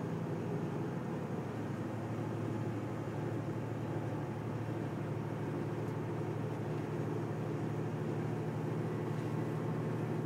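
Semi truck's diesel engine running steadily while driving, heard from inside the cab: an even low drone that holds the same pitch throughout, with road noise under it.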